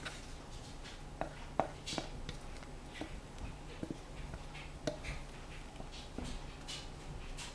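Stainless-steel pot being set over a foil-lined baking pan and shifted about: scattered light metal clinks and taps with brief crinkles of aluminium foil, over a steady low hum.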